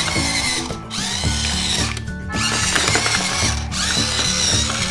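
The small electric drive motor and gears of a Strawberry Shortcake Sun Lovin' Convertible remote-control toy car whirr as it drives, with a few short breaks. Music plays along with it.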